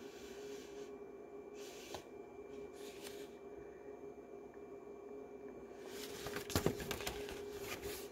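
Faint rustling and handling of a picture book's paper pages, with a louder patch of handling about six and a half seconds in, over a steady low hum of room tone.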